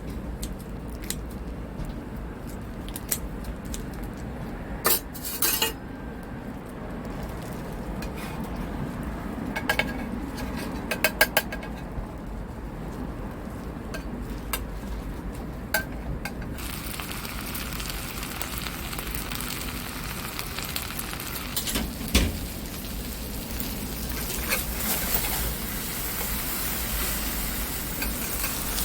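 Kitchen work: metal utensils and dishes clinking in short runs. About halfway through, a steady sizzling hiss sets in.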